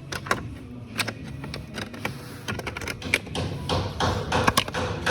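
Irregular clicks and light taps of car parts being handled and fitted, coming thicker in the second half.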